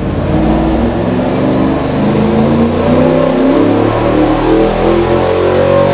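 393 cubic inch Ford Cleveland V8 with LPG liquid injection, accelerating under load on an engine dyno during a ramp run. Its pitch rises steadily as it climbs through the rev range.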